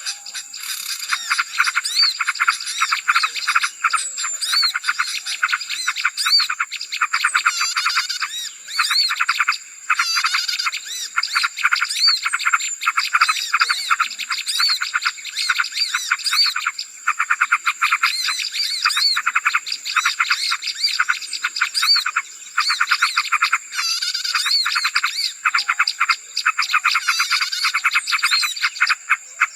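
Lure recording of many small songbirds calling at once: a dense, noisy chorus of rapid chirps, twitters and trills, with a steady thin high tone running underneath.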